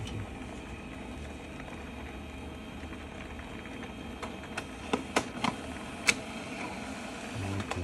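HP Color Laser MFP 178nw laser printer running as it prints a test page: a steady mechanical hum, with several sharp clicks in the second half, the loudest about six seconds in.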